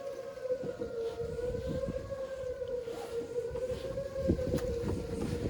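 Outdoor tornado warning sirens sounding a steady tone, its pitch wavering slightly, over a low rumble.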